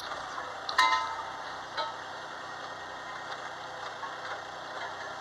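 Lever-operated excavator arcade game running: a sharp clack about a second in, then a steady mechanical whirr from the machine.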